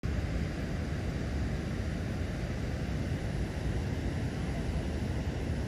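Steady low rumble of wind buffeting the microphone outdoors, with a faint hiss above it.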